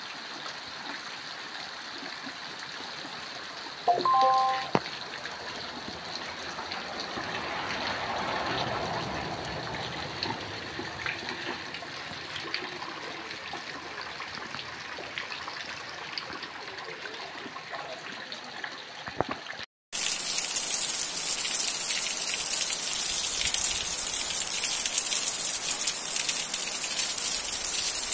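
Rain falling and water running off a tiled roof, a steady wash of noise, with a brief loud pitched sound about four seconds in. About two-thirds of the way through the sound cuts out for a moment and a louder, hissier heavy downpour takes over.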